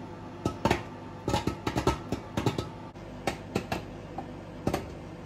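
Popcorn popping inside a running LG microwave oven: irregular sharp pops, several a second, over the oven's steady hum.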